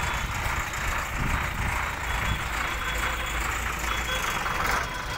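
A heavy diesel truck engine running at idle: a steady low rumble under even outdoor noise.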